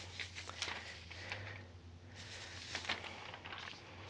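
Faint rustling and small taps of loose-leaf paper sheets being handled and shifted, over a low steady hum.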